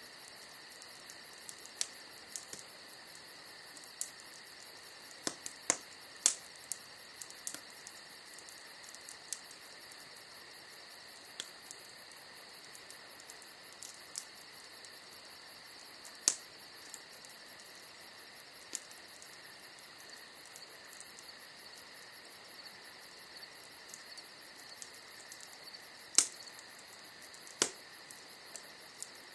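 Wood fire crackling, with about a dozen sharp, irregular pops, the loudest near the end. Under it runs a steady, high, fast-pulsing insect chirring.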